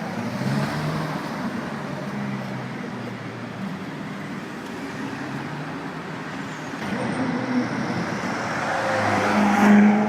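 Car engine running in street traffic, swelling to its loudest near the end of the stretch and then easing off.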